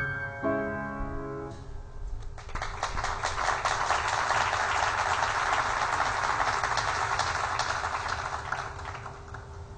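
The closing notes of a grand piano ring out and fade, then an audience applauds for about six seconds, the clapping slowly dying away near the end.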